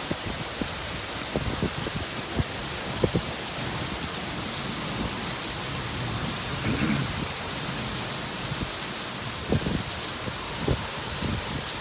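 Heavy rain pouring steadily onto pavement and grass, with irregular low thuds of big drops landing close by. A short low rumble comes about seven seconds in.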